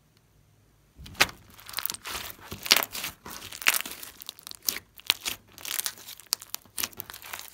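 Glossy slime with mixed-in bits being kneaded and folded by hand: a quick, irregular run of sticky crackles, pops and squelches, starting about a second in.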